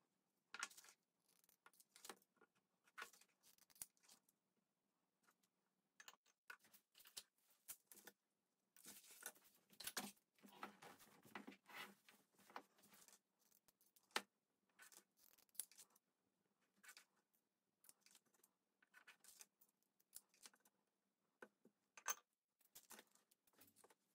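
Faint, irregular clicks, taps and scrapes of hands handling small craft items on a tabletop: a ceramic jar lid, little metal rhinestone embellishments and a pair of scissors, with a denser run of scraping and rustling about nine to thirteen seconds in.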